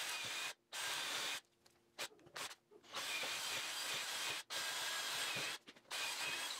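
Cordless drill running in several short runs, its bit boring into the dried-out, rotten rubber of a leaf spring eye bushing to loosen it for removal. The drill stops and starts several times, with a longer pause about a second and a half in.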